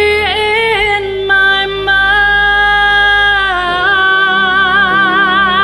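A vocal trio singing long held notes with a strong vibrato over a steady low accompaniment, moving to a new held note about three and a half seconds in, as the song's final phrase sustains.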